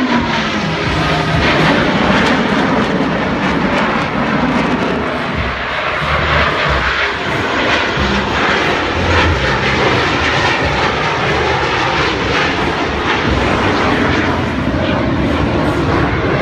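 Two Blue Angels F/A-18 Hornet jets flying past low in formation: a loud, steady jet roar, its pitch falling away at the very start.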